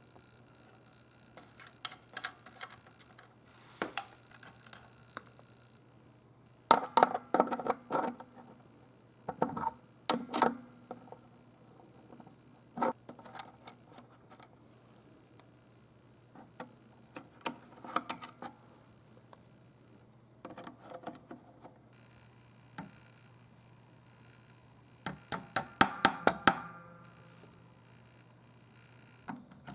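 Metal clinks and clatter from hand tools and small metal parts being handled while a guitar amplifier is taken apart. The sounds come in short bursts with pauses between, the busiest near the middle and near the end, over a steady low hum.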